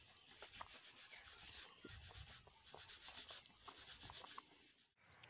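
Faint, irregular rubbing noise with a few light ticks, very quiet overall, dropping away just before the end.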